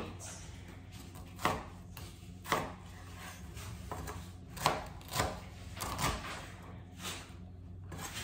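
Kitchen knife cutting vegetables on a plastic cutting board: a series of irregular, sharp knocks, roughly one every second or so.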